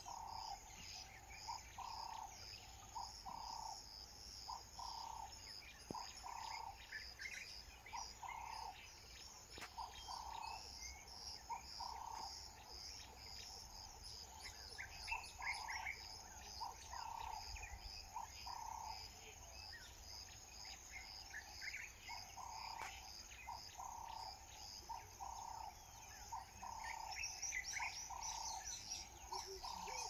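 Nature ambience: a steady pulsing chorus of insects, with birds chirping over it and a lower-pitched call repeated in runs about twice a second.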